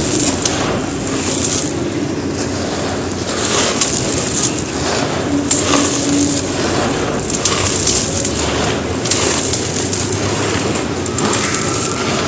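Dry, gritty white concrete crumbling and crunching, a continuous run of irregular crisp crunches.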